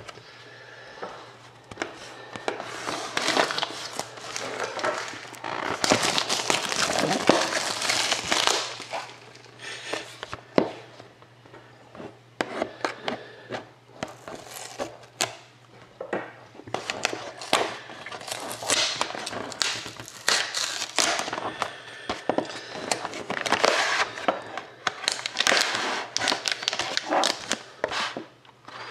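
Plastic shrink-wrap crinkling and tearing as it is slit with a blade and peeled off a sealed trading-card box, with irregular rustles and clicks from the box being handled and opened.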